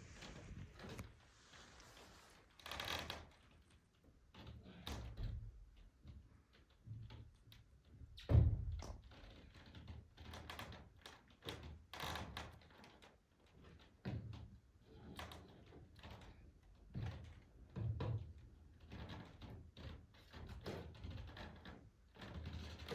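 Scattered knocks, thumps and light rustles at irregular intervals, the loudest a single thud about eight seconds in.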